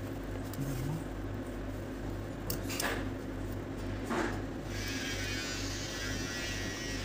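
A steady low electrical hum, with a few faint small clicks and scrapes of a hex key turning a screw in an aluminium window tie-rod. A higher hiss joins about two-thirds of the way in.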